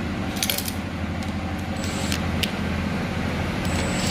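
Light metallic clicks and clinks of screws and a screwdriver as the screws are driven back in, a few scattered clicks over a steady low hum.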